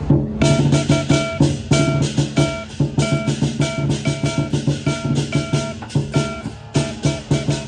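Music with a fast, steady beat, drums and held notes, starting abruptly about half a second in.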